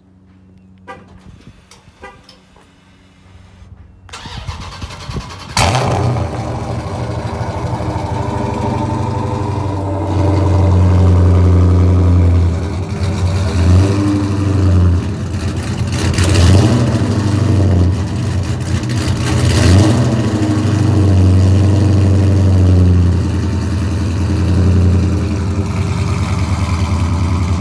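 A 2019 Dodge Charger Scat Pack's 392 (6.4-litre) HEMI V8 cold-starting. After a few light clicks, the starter cranks for about a second and a half, and the engine fires with a loud flare about five seconds in. It then settles into a loud, deep cold-start idle whose volume swells and eases several times.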